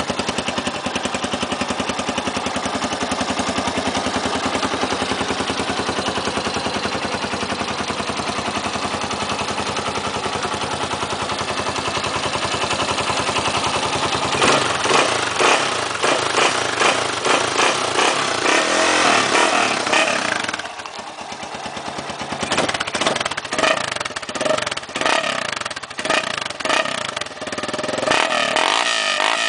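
1997 Honda NX 200's single-cylinder four-stroke engine running through its old original exhaust: it idles steadily for the first half, then is revved in repeated throttle blips, briefly settling back near two-thirds through before more blips.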